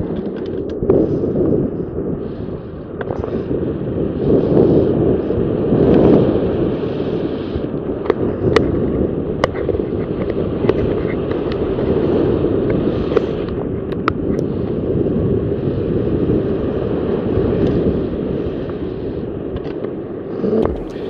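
Rough sea surging and breaking against a rocky breakwater, a continuous wash that swells and eases, with wind on the microphone and a few light clicks.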